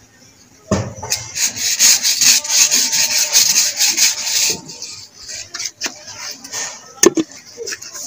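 Irregular scraping and rubbing as thick mango pulp is emptied from a jug into a steel cooking pot. It is loudest from about a second in to about halfway, then goes quieter, with one sharp knock near the end.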